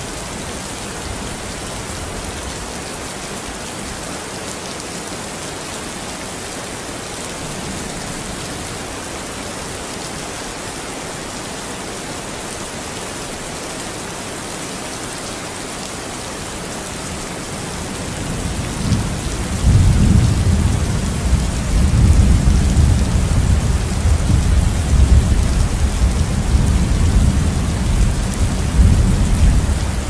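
Heavy rain falling with a steady hiss. A low rolling thunder rumble builds about two-thirds of the way in and stays loud through the last third.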